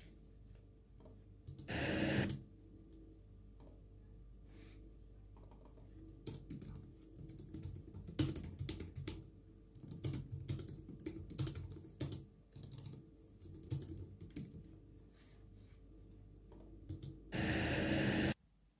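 Typing on a Logitech MX Keys Mini low-profile keyboard: irregular key clicks, sparse at first, then a busier run of typing in the middle. Two louder bursts of noise stand out, a short one about two seconds in and a longer one, about a second, near the end.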